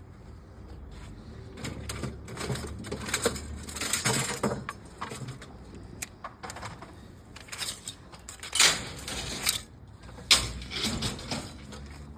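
Mixed scrap being handled and sorted by hand: irregular clanks, rattles and scrapes, the loudest a longer scrape about eight and a half seconds in and a sharp knock about ten seconds in.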